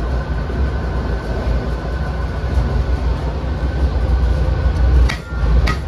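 Inside an ALn 663 diesel railcar under way: steady running noise of the diesel engines and wheels on the rails, with a low rumble and a faint steady whine. Two sharp knocks come close together near the end.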